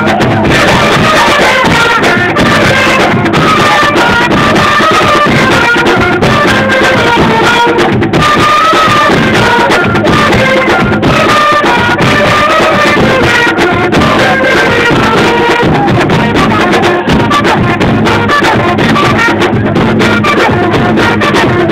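Live folk dance music played loudly and continuously: trumpets play a stepping melody over drums.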